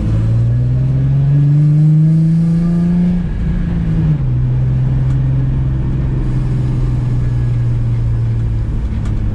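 Freshly reassembled Nissan 350Z's 3.5-litre V6 engine pulling up through the revs for about three seconds. The revs then drop and it settles into a steady cruise.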